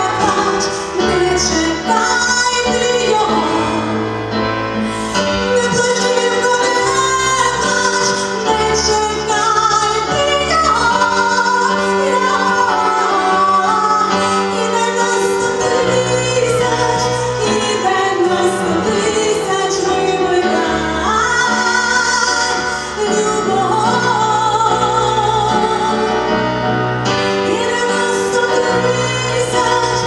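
A woman singing live into a microphone, with electronic keyboard accompaniment. Her melody moves between long held notes over sustained low chords.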